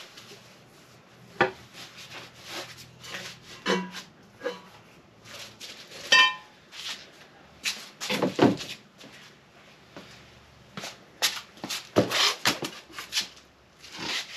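Stainless exhaust pipes and clamps being handled and fitted: irregular metal clanks, knocks and clinks, one ringing clank about six seconds in.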